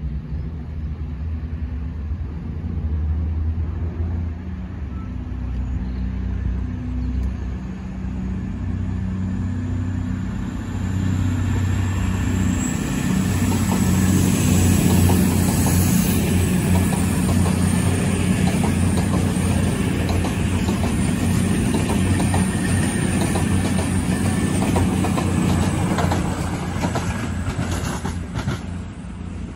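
Two coupled CrossCountry Class 220 Voyager diesel-electric trains pull away and pass over a level crossing. Their underfloor diesel engines run with a steady low hum that grows louder about ten to thirteen seconds in. As the coaches cross, the wheels give a rapid clickety-clack over the rail joints.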